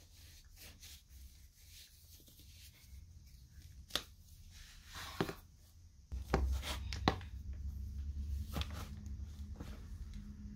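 Soft rubbing and rustling of socks and sneakers being pulled onto feet, with a few light knocks of a shoe against a wooden floor.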